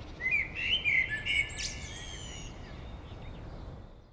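Birds calling with a run of chirps and whistled notes, loudest in the first second and a half, over a low background rumble that fades out near the end.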